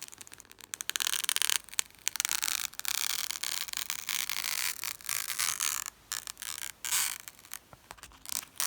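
Fingers rubbing and scraping on a paper decal sheet in short, irregular bouts with brief pauses, as a nail decal is worked loose from its backing.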